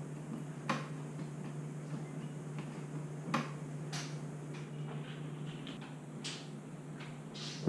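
A few scattered light clicks and taps over a steady low hum.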